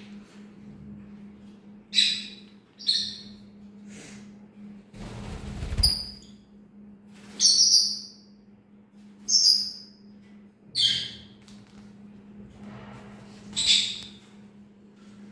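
A pet parrot giving about seven short, shrill chirping calls at irregular intervals, each lasting well under a second. A steady low hum runs underneath.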